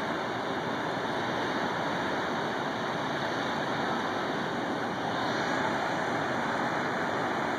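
The Big Sioux River's waterfalls rushing: a steady, even noise of falling water with no breaks.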